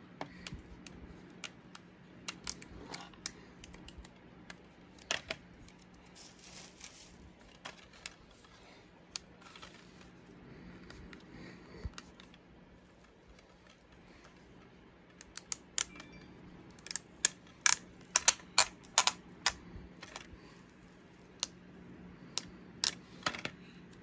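Fingers picking and peeling a security sticker off a plastic DVD case: scattered sharp clicks and plastic crackles, coming thick and loud from about fifteen to twenty seconds in, over a faint steady hum.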